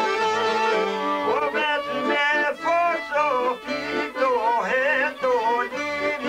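Albanian folk ensemble playing: violin, long-necked sharki and çifteli lutes, and accordion. From about a second in, a man's voice sings an ornamented, wavering melody in short phrases over the ensemble.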